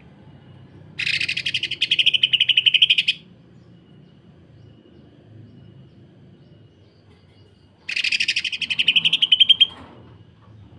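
Cucak ijo (green leafbird) giving two bursts of harsh, fast-pulsed rattling song, each about two seconds long and several seconds apart. This is the rapid 'sewing machine' kasaran prized in masteran recordings.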